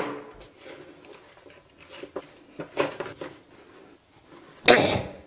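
Scattered light knocks and scrapes of hand work on a broken hollow-core door, then one short, loud burst of noise about four and a half seconds in.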